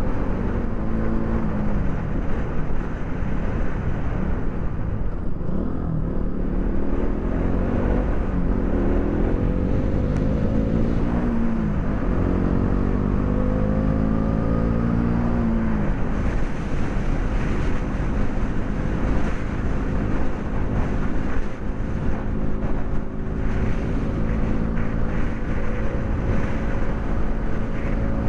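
KTM Duke 200's single-cylinder four-stroke engine riding under way, its note climbing and dropping sharply with each upshift as it accelerates through the gears. About halfway through it settles into a steady note at cruising speed.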